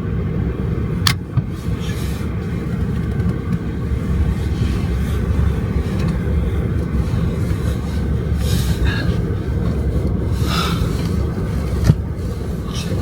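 Steady low rumble of a road vehicle running, with a faint steady hum and a single sharp click about a second in.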